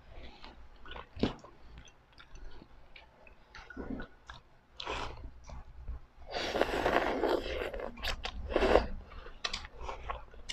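Close eating sounds of ramen: small mouth clicks and chewing, then about six seconds in a loud slurp of noodles lasting over a second, and a second, shorter slurp a little later.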